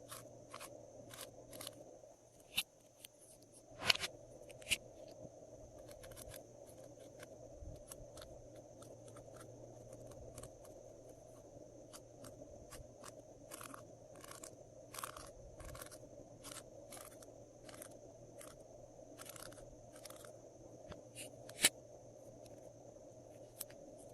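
Glossy slime being squished and stretched by hand, giving a run of irregular sticky clicks and pops, with a louder snap about four seconds in and another near the end.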